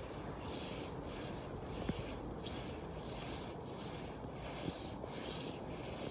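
Snow angel being made: arms and legs sweeping back and forth through snow, a faint rhythmic brushing swish repeating about every two-thirds of a second.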